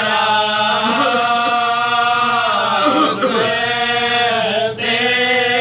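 Unaccompanied male chanting of a marsiya, an Urdu elegy, in long held notes that bend and slide in pitch, with a brief break in the voice near the end.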